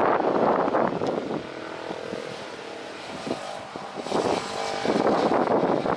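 Cars and motorbikes passing close by on a road. Their engine and tyre noise is loud at first, dies down to a steady engine hum for a couple of seconds, then swells again about four seconds in as more vehicles pass.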